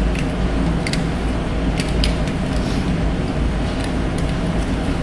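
Nylon harness straps and metal buckles of a Stryker stair chair being pulled and adjusted, giving several small sharp clicks and rattles over a steady low hum.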